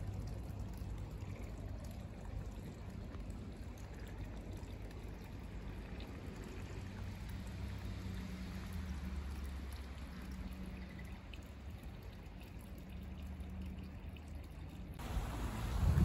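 Water trickling and pouring in a small irrigation ditch, over a steady low rumble.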